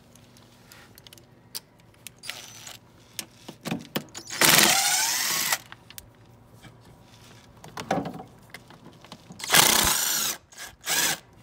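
Cordless DeWalt impact driver running in two loud bursts of about a second each, backing out two bolts; the first comes about four and a half seconds in, the second near ten seconds. Light clicks of tool handling come between them.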